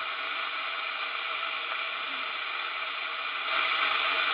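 CB radio receiver hissing with open-squelch static through its speaker while waiting for an answer to a call. The hiss is steady and gets a little louder about three and a half seconds in.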